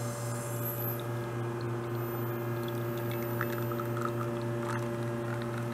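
Espresso machine pump humming steadily while a shot is pulled. From about three seconds in, faint irregular spattering as espresso streams and drips into a glass cup.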